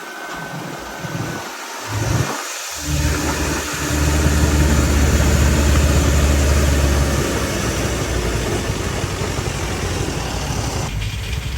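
Rice combine harvester's diesel engine running steadily, growing louder about three seconds in and easing off after a few seconds.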